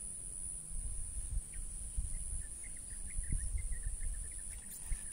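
Insects buzzing in a steady high drone, with faint scattered bird chirps. An uneven low rumbling noise on the microphone is the loudest thing.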